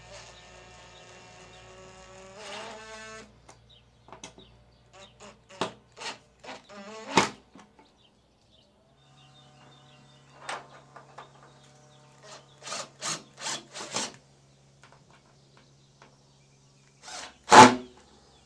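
Makita cordless drill driving a small screw through a metal bracket into a plastic downpipe, its motor whining steadily for about three seconds. Then scattered knocks and clatter, a fainter steady hum with a run of clicks in the middle, and a sharp knock near the end, the loudest sound.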